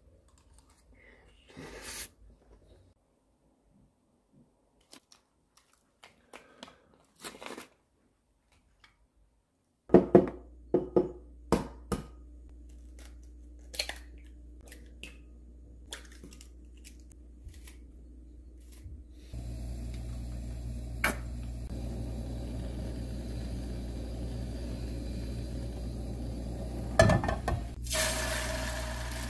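Kitchen cooking sounds: faint spoon clicks on a bowl, then sharp cracks and taps as eggs are broken into a glass bowl. A steady hum then comes on, and beaten egg sizzles as it is poured into a hot frying pan near the end.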